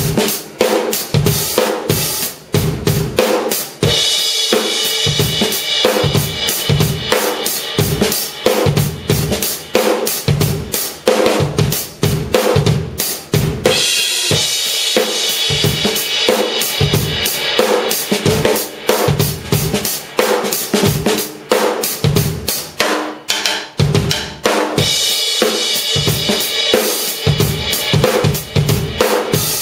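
Drum kit played in a steady groove of kick, snare and hi-hat. Stretches of crashing cymbal wash start about 4, 14 and 25 seconds in. The kit is a C&C custom drum set with TRX cymbals, played with Vater sticks.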